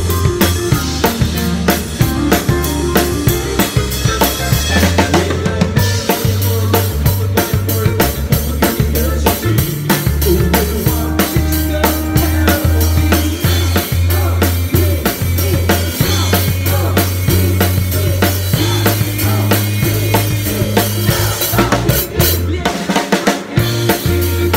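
Drum kit played in a live band, heard from beside the kit: a steady beat of kick, snare and cymbals over a held bass line, with a short break in the bass near the end.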